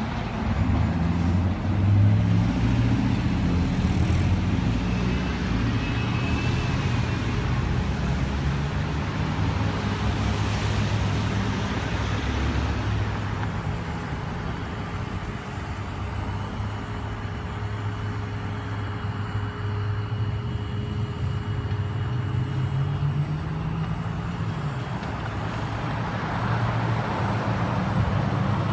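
Motor vehicle engines running steadily with a low hum and traffic noise; one engine's pitch rises briefly near the end.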